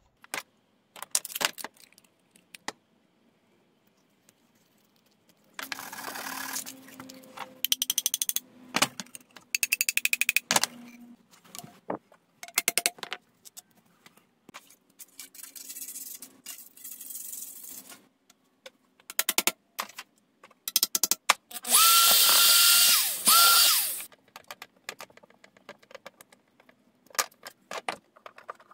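Assembly of 3/4-inch PVC pipe and fittings: scattered clicks and knocks of pipe against plastic fittings, and several seconds of scraping about a quarter of the way in. About three-quarters through, a power drill whirs loudly for about two seconds and stops.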